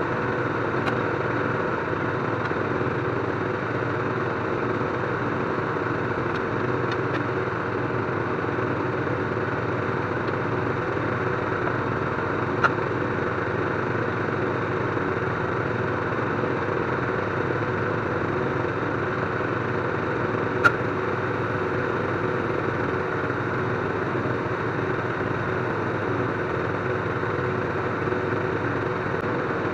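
An engine running steadily at idle, with two short sharp clicks, one a little before the middle and one about two-thirds of the way through.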